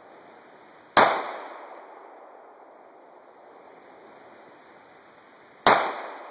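Two 9mm Glock pistol shots, about four and a half seconds apart, each a sharp bang followed by a short decaying echo.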